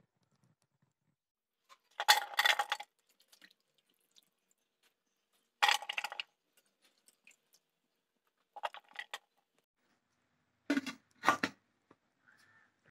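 Aluminium steamer vessel handled in four short bursts of clatter and crunch, with a light metallic ring in the first three, as cauliflower florets are put onto the perforated steamer plate. The last burst is a double knock as the aluminium lid is set on.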